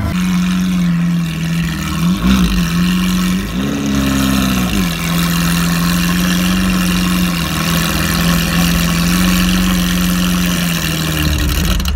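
Lamborghini Aventador LP700-4's V12 idling through an Armytrix header-back valvetronic exhaust. It gets a short throttle blip about two seconds in and a slightly longer one about a second later, then settles back to a steady idle.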